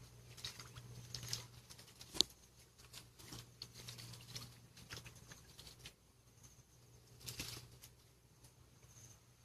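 Hands groping in shallow muddy water and mud, with scattered soft squelches, patters and small splashes, and one sharp click about two seconds in. A faint steady low hum runs underneath.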